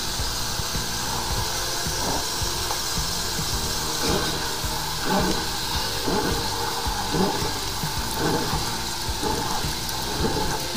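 High-pressure sewer jetter running with a steady hiss as its hose and nozzle are fed down a manhole to clear a blocked drain line. From about four seconds in there are short surges, roughly one a second.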